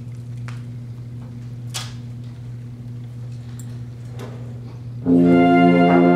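A steady low hum with a few faint clicks and rustles, then about five seconds in a wind band, flutes among them, comes in together on a loud, held chord at the conductor's cue.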